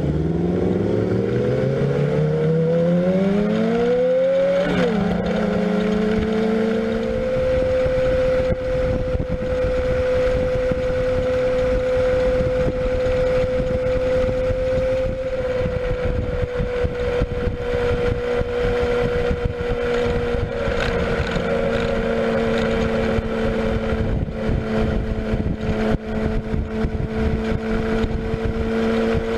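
Sport motorcycle engine pulling away, its pitch climbing over about the first five seconds with a gear change, then running at a steady pitch at highway cruising speed, with wind rushing over the microphone.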